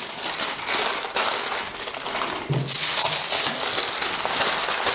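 Aluminium kitchen foil crinkling and crumpling continuously as hands fold it and press it tightly around a loaf.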